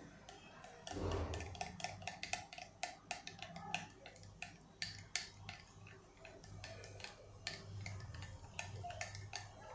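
A spoon stirring yogurt and tamarind chutney in a small ceramic bowl, its rim and sides clicking faintly against the bowl several times a second.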